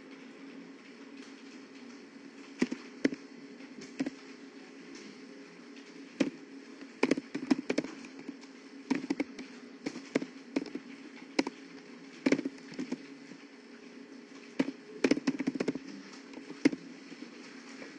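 Computer keyboard being typed on: irregular sharp key clicks, some single and some in quick clusters, over a steady low hum.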